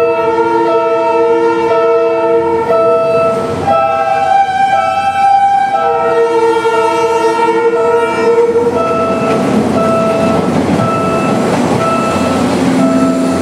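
Train horn sounding long, held multi-note blasts that change pitch a few times, some notes breaking into short repeated toots. Near the end a passing train's rumble swells under the horn.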